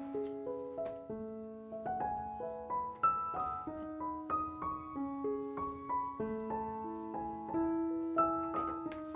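Background piano music: a gentle melody of held notes moving step by step over a lower line.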